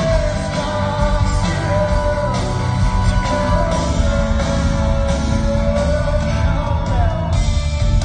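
Live rock band playing a song with a male lead singer, heard from the audience in a large hall: the voice holds long, bending notes over a steady band accompaniment.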